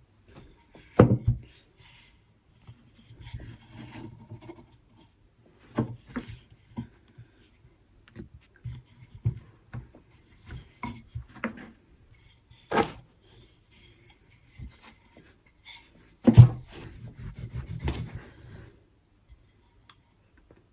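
A rolling pin rubbing and rolling over shortbread dough on a work surface, with several knocks as it is set down or bumped, loudest about 16 seconds in.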